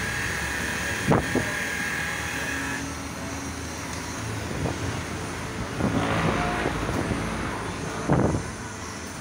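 Electric car polisher with a foam pad buffing wax on car paint, its motor giving a steady high whine that cuts off about three seconds in. A few knocks of handling follow.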